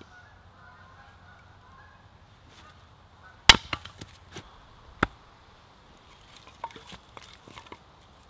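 Small axe splitting birch logs on a wooden chopping block: two sharp chops about a second and a half apart, the first the loudest, followed by a few lighter knocks of wood.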